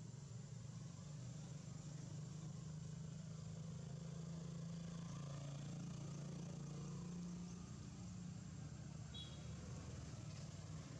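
Faint, steady low engine hum whose pitch shifts slightly, with a brief high chirp about nine seconds in.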